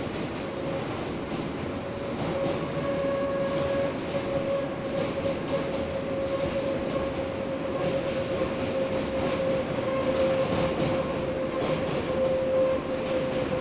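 R143 subway car running at speed, heard from inside the car as it crosses a steel bridge: a steady rumble of wheels on rail with a steady whine held over it, growing a little louder about two seconds in.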